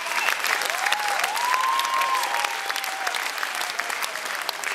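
Audience applauding, dense steady clapping, with a few faint drawn-out tones around it.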